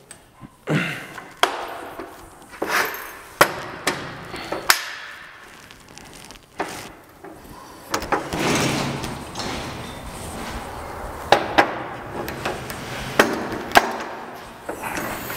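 Steel parts of a drywall lift clanking and knocking as its mast is fitted into the wheeled tripod base: a string of sharp metal knocks, some ringing briefly, with a longer rattle about eight seconds in.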